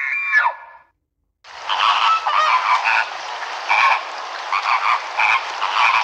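A flock of flamingos calling together as they take off over water: a dense, noisy chorus of overlapping honks starting about a second and a half in. Before it, a short whistle-like sliding tone fades out in the first second.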